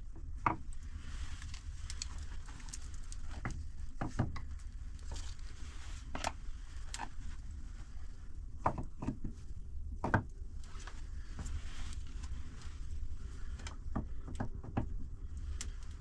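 Stones clacking and scraping as they are set by hand onto a dry-stone wall: irregular sharp knocks, a few louder ones, over a steady low rumble.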